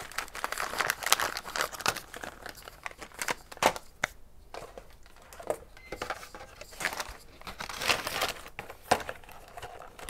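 Clear plastic packaging bag crinkling and crackling as it is handled, densest in the first two seconds, then sparser rustles and sharp crackles as the packaging and a cardboard box are moved about.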